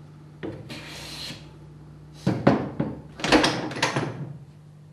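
Steel hand plane taking a fine finishing stroke along the edge of a board, a short shaving hiss about half a second in, followed by sharp wooden knocks and a louder clatter of wood and the plane against the bench near the end.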